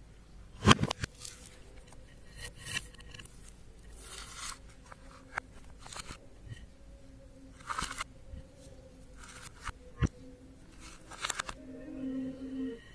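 Slime being squeezed and stretched by hand: irregular sticky clicks and crackles as air pockets pop, with a sharp snap under a second in.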